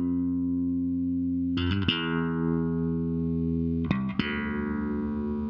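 Electric bass guitar track playing back through a compressor: long sustained notes, with a new note struck about one and a half seconds in and again about four seconds in. Each note is held at a steady, even level, the compressor holding the loud attacks down and lifting the tails.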